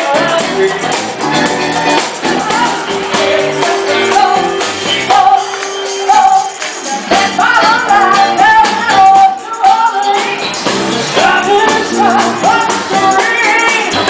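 A live band plays a song with singers over drums and the band, and a busy high percussion rhythm.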